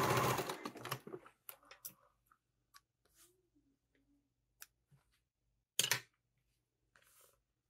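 Domestic sewing machine running at speed as it top-stitches vinyl, stopping about half a second in. Then scissors snip the threads among faint rustling of fabric and vinyl, with one sharp clack just before six seconds.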